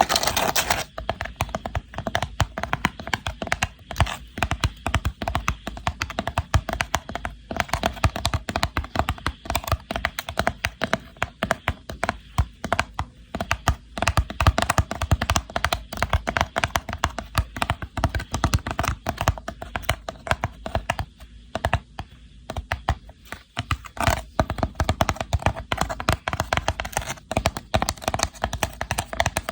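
Rapid, irregular tapping and clicking on a woven rattan box, dozens of small sharp taps a second, with a brief lull about 21 to 23 seconds in.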